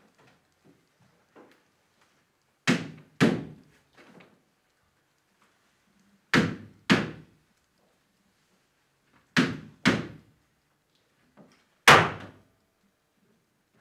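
Heavy thuds in pairs about half a second apart, three pairs and then a single thud near the end, each ringing out briefly in the room.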